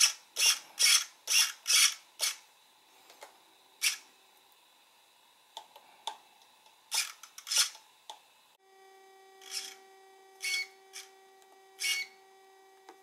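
Short rasping scrapes and clicks from a hand working a radio-control transmitter's stick and knobs, several in quick succession at first, then a few scattered ones. After a cut about two-thirds through, a faint steady hum sits under further scrapes.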